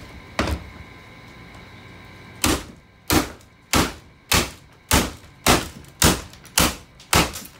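Hammer blows on the plastic housing of a Bissell stick vacuum as it is smashed open. One blow comes about half a second in, then after a pause a steady run of about nine blows, a little under two a second.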